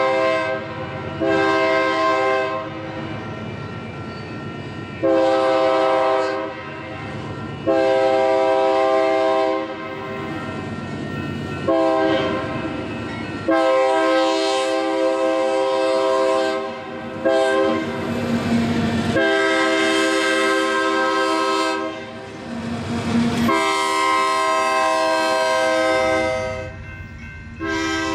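Union Pacific 6655 locomotive's multi-note air horn blowing a long series of blasts, some long and some short, the warning for a road crossing. Between blasts the train's rumble and wheel clatter on the rails are heard.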